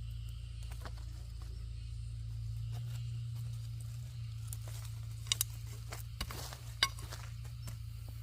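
A steady low hum with scattered light clicks, knocks and rustles, a few sharper knocks in the second half.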